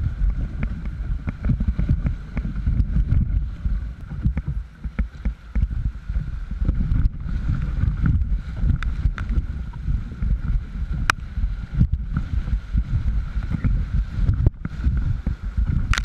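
Whitewater rapids rushing and splashing around a canoe as it is paddled through them, with a heavy, uneven low rumble on the boat-mounted microphone and a few sharp knocks.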